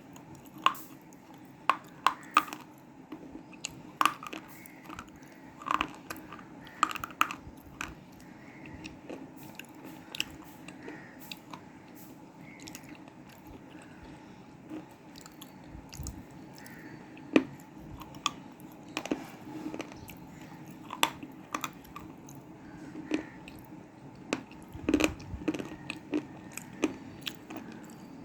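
Crunchy bites into black cement slate, with chewing between them: sharp snaps and crackles at irregular intervals, close to the microphone, one especially loud snap about two thirds of the way in.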